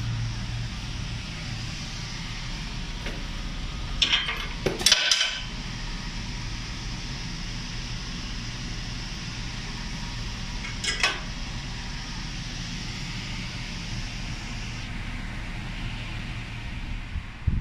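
Steady low mechanical hum, with a short clatter of hard clinks about four to five seconds in and another brief clink near eleven seconds.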